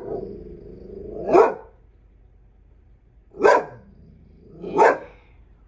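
English springer spaniel giving alert barks at something outside: a drawn-out low grumble that leads into a bark, then two more barks.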